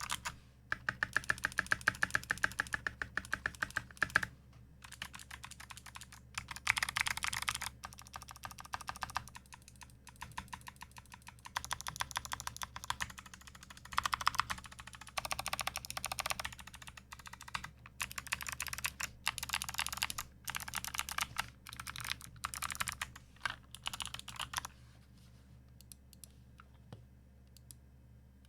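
Fast typing on a mechanical keyboard with lubed Kailh Speed Bronze clicky switches and thick PBT keycaps: dense runs of key clicks with short pauses between words. The typing stops about four seconds before the end, leaving only a few faint clicks.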